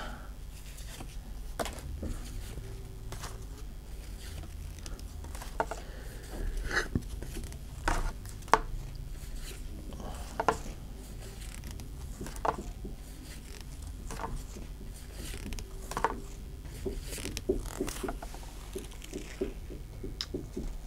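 Pokémon trading cards being handled one at a time in gloved hands: irregular soft clicks and slides as each card is moved off the stack, over a steady low hum.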